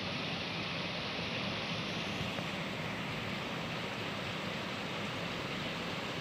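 Heavy rain falling steadily as a constant, even hiss.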